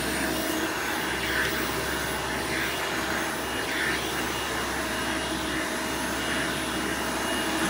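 Vintage Hoover Elite 200 (U4467) upright vacuum's 5-amp direct-air motor running steadily in tool mode, with the upholstery brush fitted on the attachment converter. It is a constant whine with a few steady tones.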